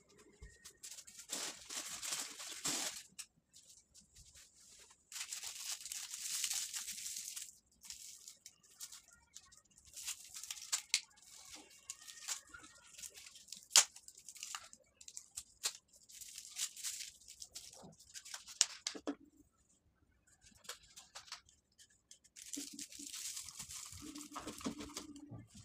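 Hands handling plastic and cardboard craft pieces on a tabletop, making rustling, crinkling noises in several bursts of a couple of seconds each. Sharp taps and knocks fall in between, the loudest about fourteen seconds in.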